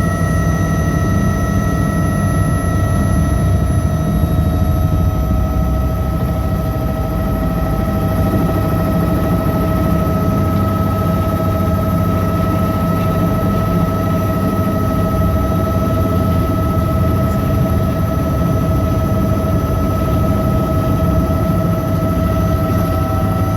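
Helicopter in flight heard on board, loud and steady: a heavy rotor and engine rumble with a constant high turbine whine over it.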